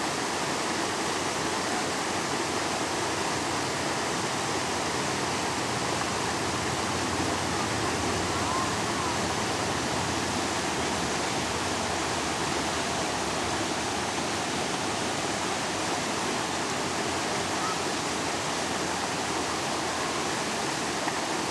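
Water of a mountain stream rushing steadily as it pours into the Basin, a round pothole worn into the granite.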